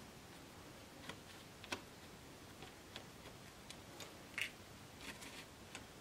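Faint, scattered clicks and ticks of a Phillips screwdriver turning a small screw out of the back of a lock cylinder, metal on metal, as the screws holding the cam are removed. The loudest is a brief scratchy click a little past halfway.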